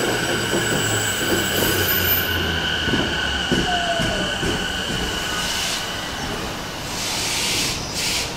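JR East E233-1000 series electric train slowing into the platform. The Mitsubishi IGBT-VVVF inverter and motor tone steps down in pitch over the first few seconds, over a steady high squeal. A hiss of air comes near the end.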